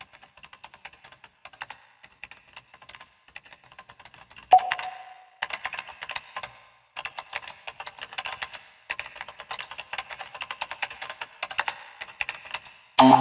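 Rapid, irregular light clicks and taps from a smartphone being handled, with one brief tone about four and a half seconds in.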